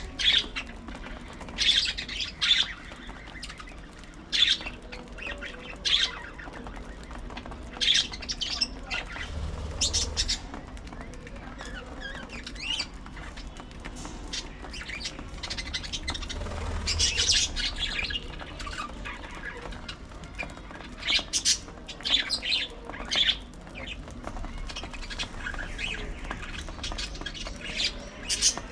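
Budgerigars chirping and chattering in short, scattered high calls, with occasional louder squawks.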